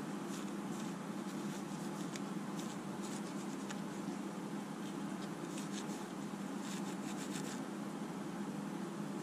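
Light, scattered clicks and taps from a circuit board being handled and turned over by hand, over a steady low hum.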